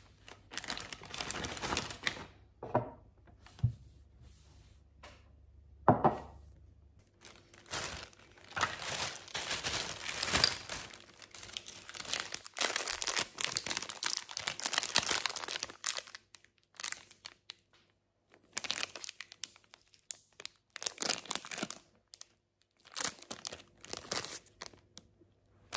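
Plastic and paper packaging crinkling and rustling in irregular bursts as it is handled and unwrapped, with a sharp tap about six seconds in and a pause of about two seconds past the middle.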